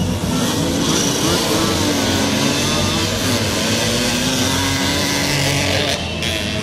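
Several small motorcycle and moped engines revving together as a pack of racers pulls away from a race start, their pitch rising and falling as they accelerate.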